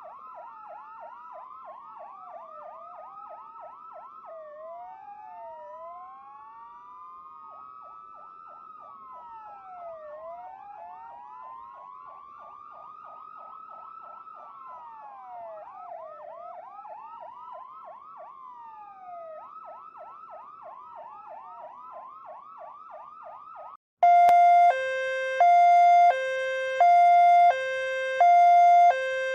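Ambulance sirens layered together: a rapid yelp over overlapping slower wails that rise and fall over a few seconds each. About 24 seconds in it cuts to a much louder two-tone hi-lo siren, switching between a low and a high pitch a little more than once a second.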